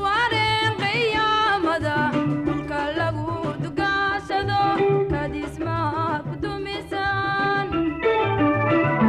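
Somali popular song: a woman singing with vibrato over electronic organ and bass.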